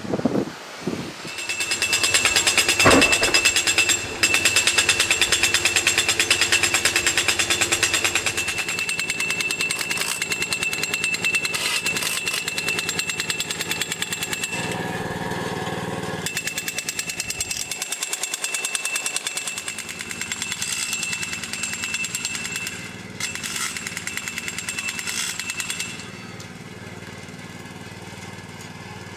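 Jackhammer breaking up concrete on a construction site, hammering in a fast, continuous run of strokes with a steady high whine and a few short pauses. It stops about 26 seconds in, leaving a quieter steady background.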